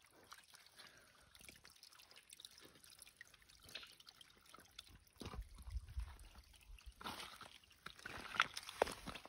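Faint trickling water, with scattered small drips and splashes.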